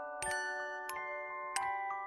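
Background music: a light, tinkling melody on a glockenspiel-like mallet instrument, with bright notes struck a few times a second, each ringing on under the next.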